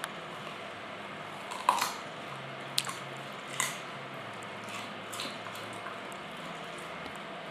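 A dog chewing a raw carrot, with several short crunches spread over a few seconds, the loudest about two seconds in.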